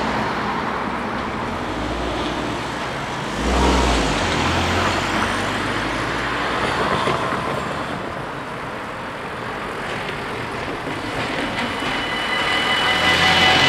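Road traffic crossing a level crossing: cars and a van driving over the rails, one passing loudly about four seconds in. Near the end the crossing's warning bells start ringing steadily as the red lights come on, the signal that a train is approaching.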